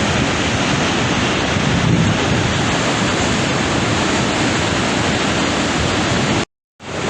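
Steady roar of the Augrabies Falls on the Orange River, mixed with wind buffeting the microphone. The sound cuts out completely for a moment near the end, then resumes.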